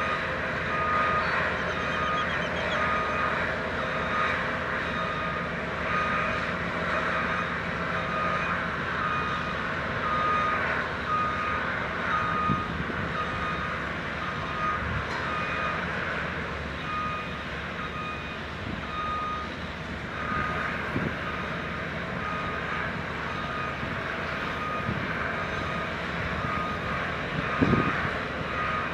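A vehicle backup alarm beeping steadily, about once a second, over the steady running of heavy site machinery, with a single knock near the end.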